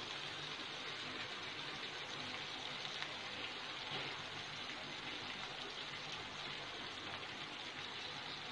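Milk and sugar boiling down into palkova in a nonstick pan: a steady, soft bubbling and fizzing.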